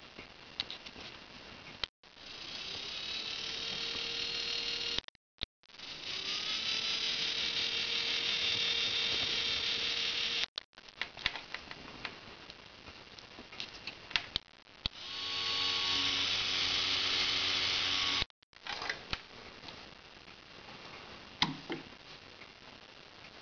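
Small 10 rpm geared motor of a homemade electric telescope focuser running on 4.5 V, turning the focuser knob through a rubber wheel with a steady whine. It runs three times for a few seconds each, swelling up as it starts and cutting off suddenly, with small clicks from the push-button control box in between.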